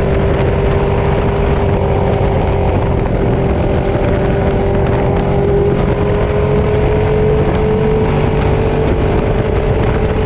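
Ducati Streetfighter 848's L-twin engine running at a steady cruise, its tone creeping slightly higher, under a constant rush of wind noise.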